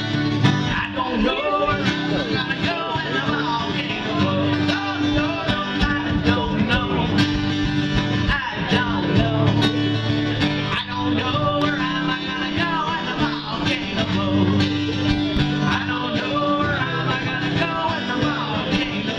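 Live song: an acoustic guitar strummed steadily, with singing over it.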